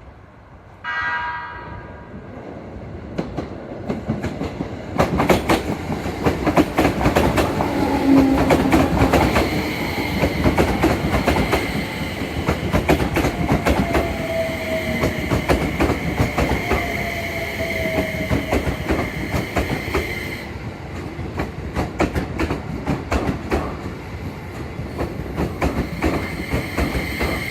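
A short horn blast about a second in, then a Keio 5000 series electric train pulling into the station. The noise grows as the wheels clack over the rail joints, and a steady high whine carries on as it slows.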